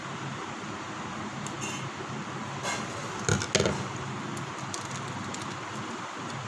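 Opening a small sauce packet with scissors and fingers at a table: a brief cluster of clinks of metal against a plate about three seconds in, then light crinkling of the packet, over a steady low hum.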